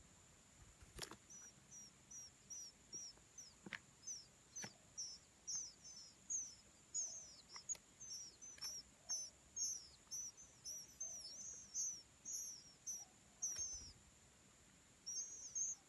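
Oriental magpie-robin singing: a long, rapid run of short, high, down-slurred whistled notes, about two to three a second, with a brief pause near the end before a last few notes.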